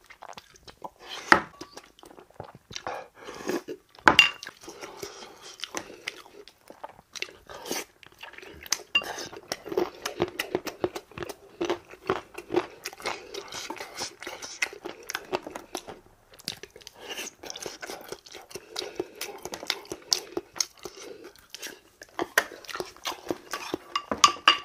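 Close-up eating sounds: chewing and crunching of food, with sharp clicks now and then of a spoon and chopsticks against ceramic bowls.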